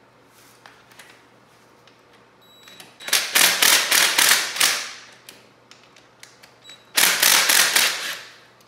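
Ratchet wrench run in two rapid clicking bursts, one about two seconds long and one just over a second, each trailing off at the end, while bolts are worked on a motorcycle's front end.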